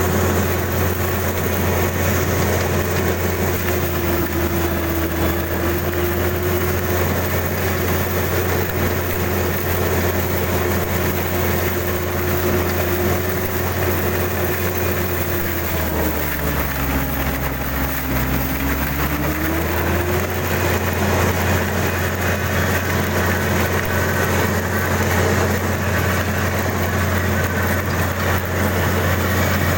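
Kubota DC-35 combine harvester running steadily, its diesel engine and machinery giving a constant drone. About halfway through, the pitch sags lower for a few seconds and then comes back up, as the engine briefly slows.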